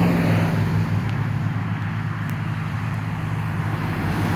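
Road traffic: a vehicle engine running with a steady low hum over roadway noise.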